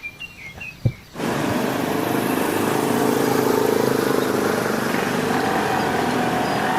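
A few faint clicks and a knock, then about a second in the steady noise of a vehicle on the move, engine and road noise, starts suddenly and runs on evenly.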